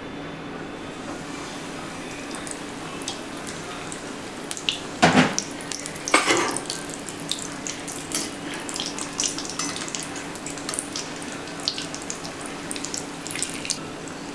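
Hot oil in a steel kadai sizzling and crackling as a semolina-coated dal-rice ball deep fries. There are two loud sizzling bursts about five and six seconds in as the ball goes into the oil, then steady crackling.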